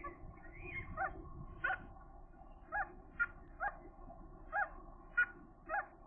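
Gulls calling: a string of about ten short calls, each rising and falling in pitch, coming every half second to second.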